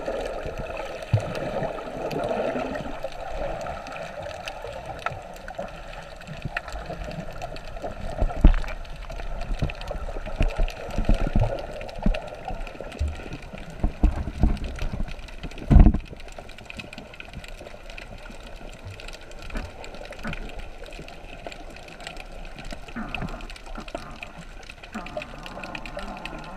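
Underwater sound recorded beneath the surface: a muffled rush of water and bubbling, broken by irregular dull thumps, the loudest about sixteen seconds in.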